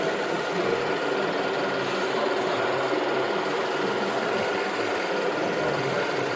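Steady whirring of a radio-controlled model vehicle's small motor and gearing running.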